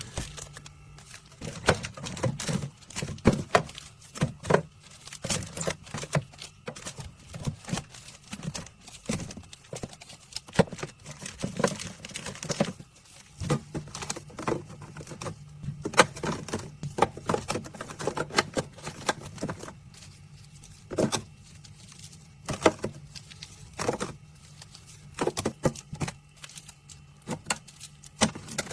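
Irregular clicks, taps and light rattles, as of hard objects being handled, over a steady low hum.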